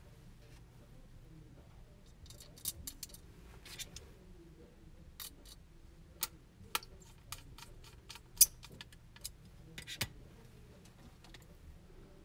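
Irregular light clicks and ticks of a crosshead screwdriver tip and small metal screws being worked into a circuit board, with handling of the board; one sharper click about eight seconds in.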